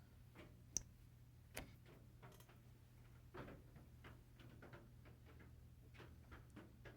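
Near silence over a low steady hum, with faint scattered small clicks and taps of a pocket knife being handled, the sharpest about a second in.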